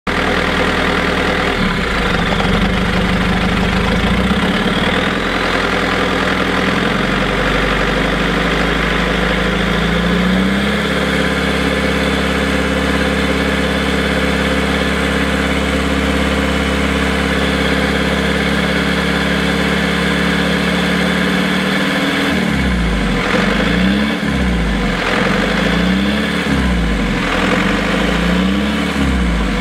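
Land Rover engine running with the LT230 transfer box removed and no exhaust silencer, to bring out the noise under investigation. It runs steadily, its speed steps up about a third of the way in, and near the end it is revved up and down repeatedly, about once every second and a half.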